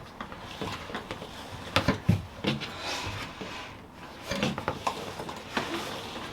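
A few light knocks and clatters of small hard objects being handled, the loudest two close together about two seconds in.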